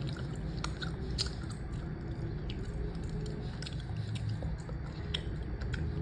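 Scattered soft, sticky clicks and squishes of a shark-shaped gummy candy, over a steady low hum.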